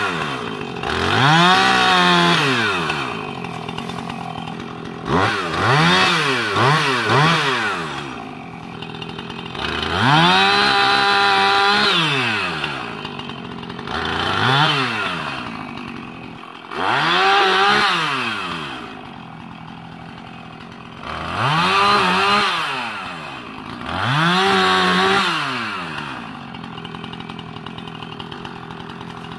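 Husqvarna Rancher 450's two-stroke chainsaw engine bucking a small felled tree: about eight throttle bursts, each rising to high revs, holding briefly, then falling back to idle between cuts.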